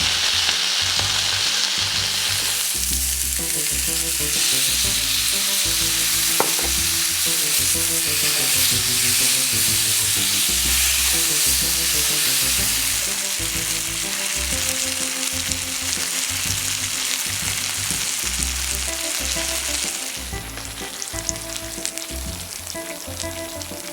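Chop steak, cubed beef with vegetables, sizzling in oil in a hot pan. The steady hiss eases about 20 seconds in, leaving lighter crackling and popping.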